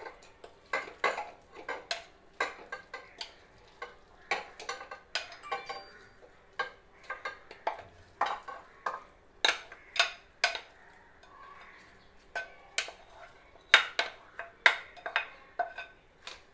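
A knife and then a spatula scraping and tapping against a glass mixing bowl as a wet chicken mixture is scraped out into a nonstick pan. It comes as an irregular run of sharp clicks and short scrapes.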